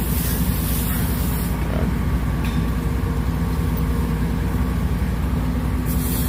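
Steady low rumble of a large engine idling.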